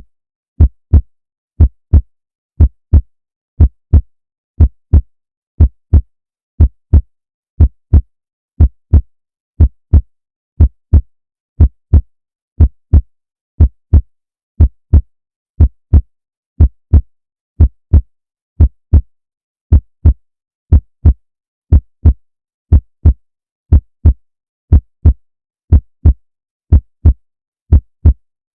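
Heartbeat: a steady lub-dub, two deep thumps close together, repeating about once a second with silence between beats.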